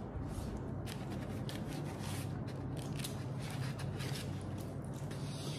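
Food packaging being handled and opened by hand, crinkling and crackling in a quick, irregular run of small crackles.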